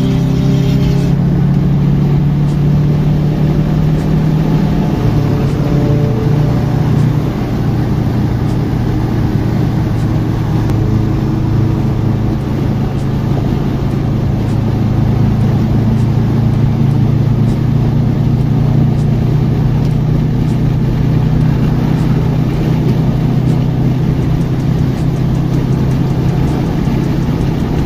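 2003 Subaru WRX's turbocharged flat-four engine at a steady highway cruise, heard from inside the cabin: a constant low engine drone mixed with tyre and road noise.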